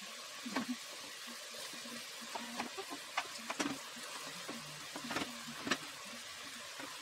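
Kitchen knife cutting zucchini on a wooden cutting board, with chunks dropped into a stainless steel pot: about six sharp knocks spaced irregularly. Underneath runs a steady sizzling hiss from the hot pot.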